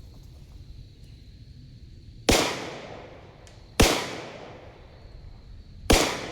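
Three shots from a Glock 19 pistol, about a second and a half and then two seconds apart, each sharp crack followed by a long echo.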